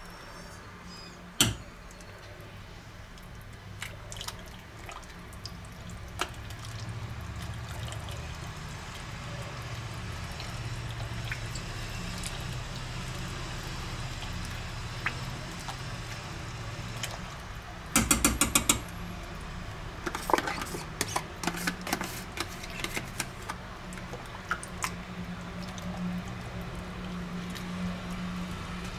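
A metal spoon stirring thick cheese and leek soup in a stainless steel pot, scraping and clinking against the pot. There is a sharp knock about a second and a half in and a quick run of clicks about eighteen seconds in.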